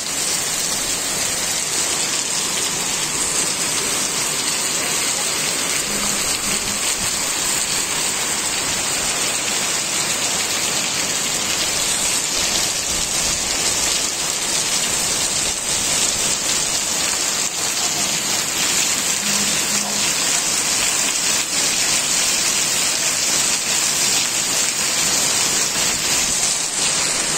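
Heavy rain pouring steadily onto a wet paved street: a dense, even hiss of drops splashing on the surface.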